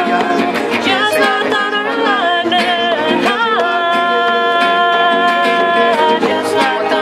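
Live acoustic folk band playing an instrumental passage: fiddle carrying the melody, sliding into and holding one long note near the middle, over strummed acoustic guitars and a steady box-drum beat.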